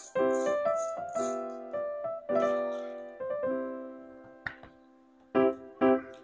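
Background music: a bright keyboard tune of separate, quickly struck notes. It dies away almost to nothing for about a second and then starts up again near the end.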